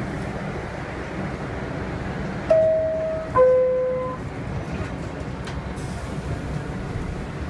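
Two-tone descending chime of an R62A subway car, typical of the door-closing signal: a higher tone lasting under a second, then a lower one. Both sound over the steady rumble and hiss inside the car.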